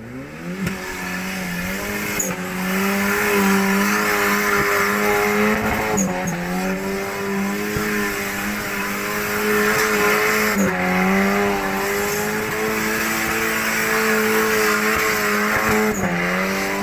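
A small off-road 4x4's engine revving up quickly and held at high revs under load, wavering slightly and dropping briefly three times, about six seconds in, near eleven seconds and near the end, before picking up again.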